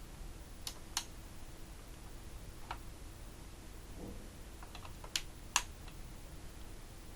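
Irregular light clicks and taps, spaced unevenly, the sharpest about a second in and about five and a half seconds in, with a soft low knock about four seconds in.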